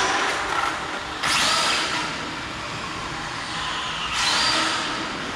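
Electric RC car's motor whining with tyre hiss on concrete, surging twice: about a second in and about four seconds in, the second time with a rising whine.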